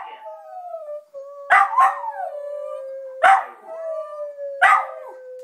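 Small white terrier howling in a long wavering note that slowly falls in pitch. The howl is broken by sharp, loud barks about every second and a half.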